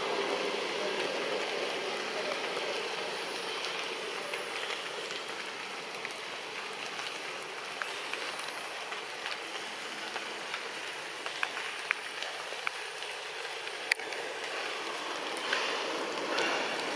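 Steady outdoor background hiss without a clear pitch, with a few sharp clicks in the second half, the loudest about three-quarters of the way through.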